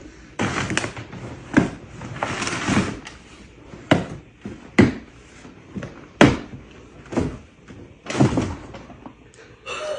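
A package being handled and opened: a series of rustling swishes and sharp knocks, irregularly spaced, the sharpest about six seconds in.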